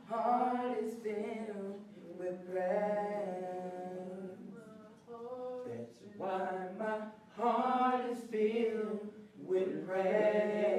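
A teenage boy singing a song, with a man singing along beside him; the voices hold long, drawn-out notes between short breaths.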